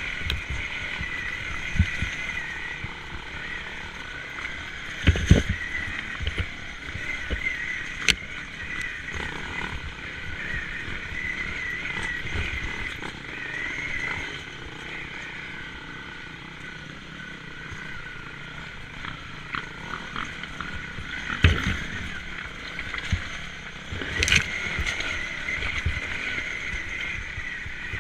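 Honda CRF trail bike's single-cylinder engine running at low revs as it rides slowly over a rocky lane. Several sharp knocks and thuds, loudest about five seconds in and again past twenty seconds, from the bike jolting over stones.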